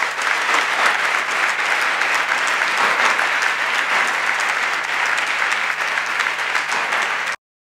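A large seated audience applauding steadily in a hall, dense many-handed clapping that cuts off abruptly near the end.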